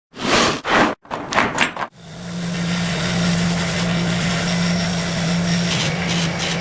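Several short scraping bursts, then a motor-driven power tool running steadily with a constant low hum from about two seconds in.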